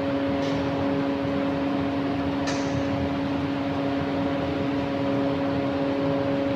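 An electric motor hums steadily, with a constant low tone over a noisy whir, as from a running kitchen appliance. There are two faint clicks, about half a second and two and a half seconds in.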